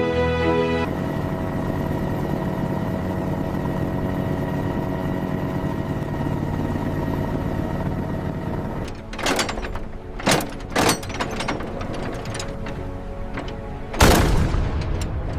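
Background music, then naval guns firing: three sharp shots in about two seconds, followed a few seconds later by one loud boom with a long fading tail, the loudest of them.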